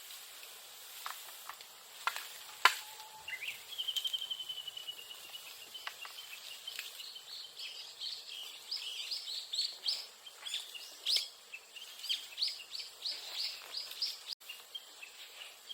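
Japanese bush warbler (uguisu) calling: one long steady whistle, then a long run of quick repeated rising notes. A few sharp snaps come in the first few seconds, the loudest about two and a half seconds in.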